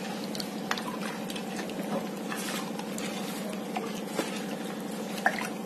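Steel ladle stirring thin, watery curry gravy in a granite-coated pan, the liquid sloshing, with a few sharp ticks of the ladle against the pan. A steady low hum runs underneath.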